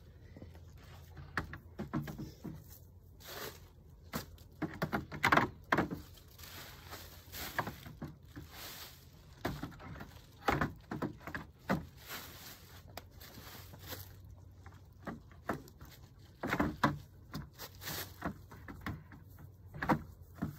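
Irregular crunching and rustling of fallen leaves being trodden and handled inside a wooden pallet-collar planter.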